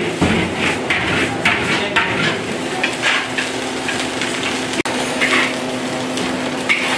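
Metal spatula scraping and clanking against a steel wok, stirring and scooping fried rice in short repeated strokes, over a steady low hum.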